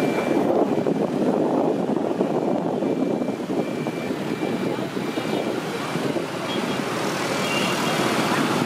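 Dense street traffic of motor scooters heard from a moving motorbike: a steady rumble of many small engines and tyres. A few faint short high beeps come through about three seconds in and again near the end.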